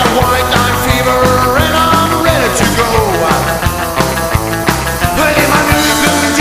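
Rock music with a steady, driving beat.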